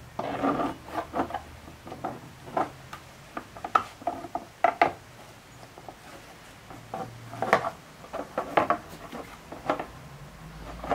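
Hard plastic parts clacking, knocking and rubbing as a 3D-printed air inlet duct is worked by hand into place against the radiator shroud. The knocks are irregular, with a scraping rub in the first second, over a faint steady low hum.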